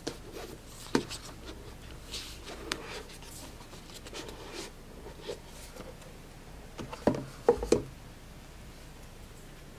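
Handling of a cardboard product box during unboxing: light rubbing and scattered taps, then a quick cluster of sharper knocks and clicks about seven seconds in.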